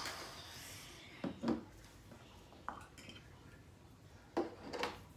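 Glass baby food jar with a metal lid being handled and opened at a table: a short scraping hiss, then a few glass and metal clinks and knocks.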